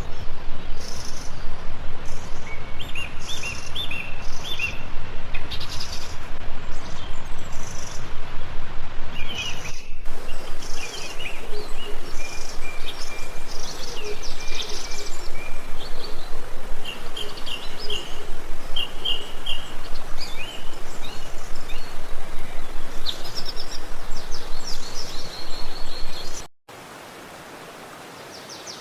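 Rushing water of a forest stream under many birds chirping. Near the end the water sound cuts off abruptly to a much quieter background, where the birds go on chirping.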